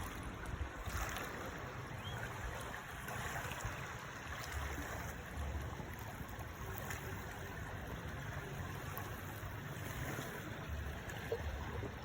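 Steady rush of sea water and wind, with gusts buffeting the microphone every few seconds.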